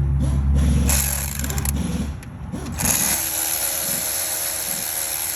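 Electric power tool running steadily as it tightens the bolts of a new drive-belt tensioner. A heavy low hum in the first two seconds gives way, about three seconds in, to a steady whine with a high hiss.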